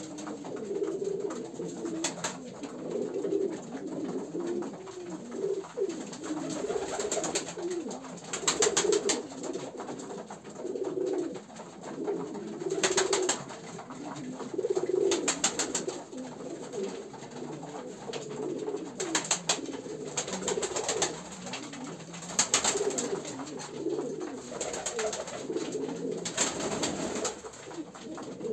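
A loft full of stawak fancy pigeons cooing continuously, with short bursts of wing flapping every few seconds.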